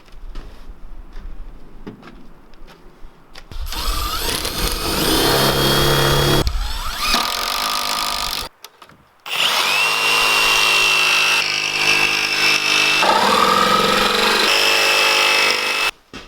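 Electric kitchen blender motor grinding almonds into almond butter, running for about five seconds, stopping briefly, then running again for about seven seconds, its pitch shifting as the load changes.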